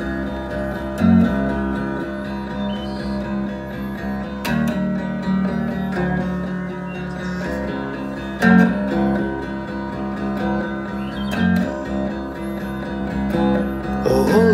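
Solid-body electric guitar playing a slow chord progression, the chords ringing on, with a harder strum about every three to four seconds.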